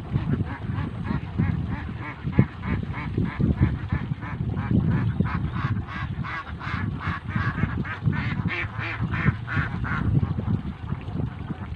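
Flock of itik, Philippine domestic ducks, quacking in a fast run of short calls that is busiest about halfway through, over a steady low rumble.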